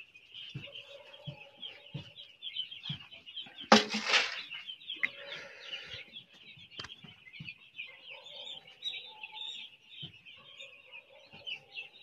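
A shedful of young chicks, about six days old, peeping constantly in a dense, high-pitched chorus. About four seconds in, a brief loud burst of noise sounds over the peeping, followed by a softer hiss.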